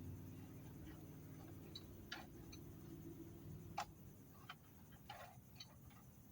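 Faint, scattered clicks and light knocks of a power saw being handled while its clogged sawdust port is cleared, over a low hum that fades out in the first couple of seconds.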